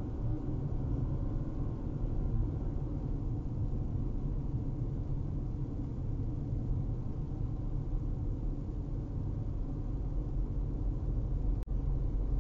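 Steady low road and engine rumble inside a moving car's cabin at about 30 mph. Near the end the sound cuts out for an instant.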